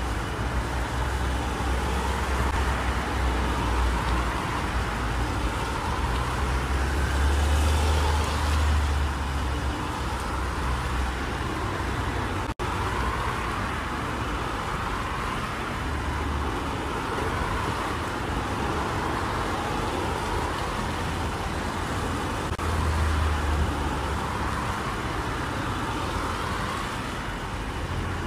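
Road traffic noise: cars running and passing, a steady hum with a low rumble that swells and fades several times. The sound cuts out for an instant about halfway through.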